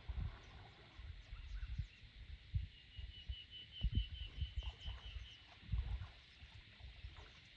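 Outdoor lakeside ambience: a bird gives a fast trill of about a dozen even notes in the middle, over a steady high background hiss, with irregular low rumbles on the microphone.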